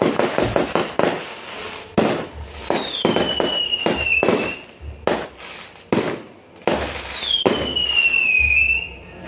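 Fireworks going off in a rapid series of sharp bangs, with two long whistles falling in pitch, one about three seconds in and one about seven seconds in.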